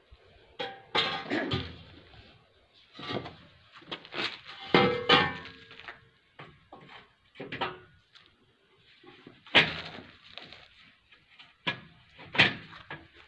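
Square steel tubes of a mini crane's frame knocking and clanking against each other and the concrete floor as the frame is laid out and assembled: a series of separate irregular knocks, some with a brief metallic ring.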